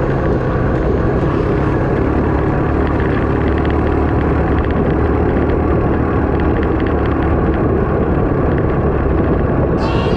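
ATV engine running steadily under way on a dirt trail, heard from on board the machine.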